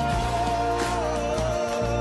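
Background music: a song with a held, wavering melody line over steady bass notes.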